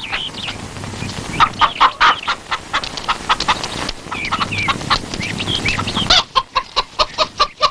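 Chickens clucking in short repeated calls, with a faster, even run of clucks in the last second or two.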